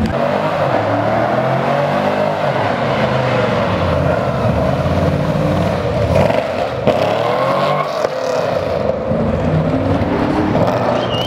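Car engine revving hard, its pitch climbing and dropping again and again.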